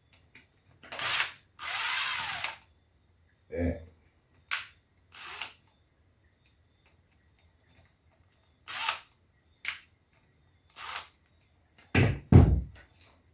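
Fastening a wire to a light switch's terminal screw: a series of short scrapes and clicks from the screwdriver and the plastic switch, with one longer grinding burst about two seconds in. Two heavier knocks near the end.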